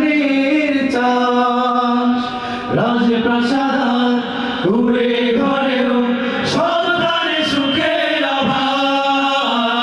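A group of men singing an Islamic devotional song together into microphones, holding long notes and sliding between pitches.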